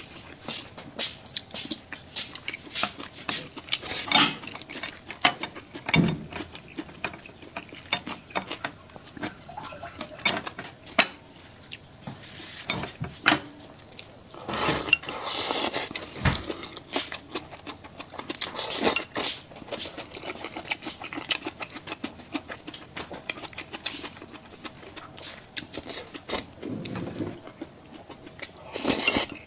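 Eating at the table: utensils clicking and clinking against bowls and plates, with chewing and a few longer slurps of hot noodle soup.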